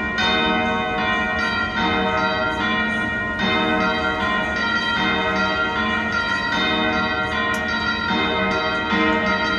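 Military band playing a slow piece: sustained brass chords that change about every half second to a second, with a ringing, bell-like sound.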